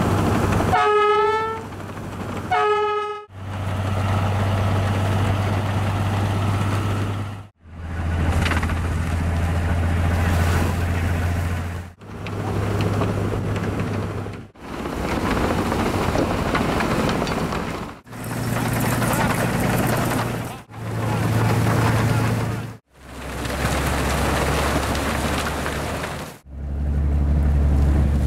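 A train horn gives two short blasts, then a string of short takes of locomotive snow plows ploughing through deep snow. Each take has a steady low diesel engine drone under a rushing hiss of thrown snow, and the sound changes abruptly every three to four seconds.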